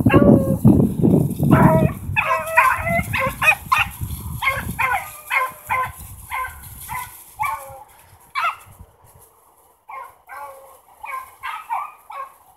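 A pack of beagles baying on a rabbit's trail, many short overlapping calls, thinning out about eight seconds in and picking up again about ten seconds in. A low rumble lies under the first few seconds.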